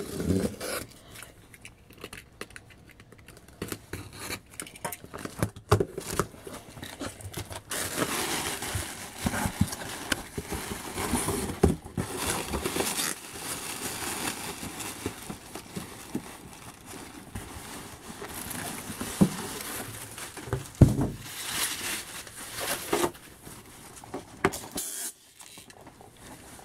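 Cardboard box and packing material being torn open and rummaged through by hand: irregular rustling, crackling and scraping, with scattered knocks. It is loudest through the middle stretch.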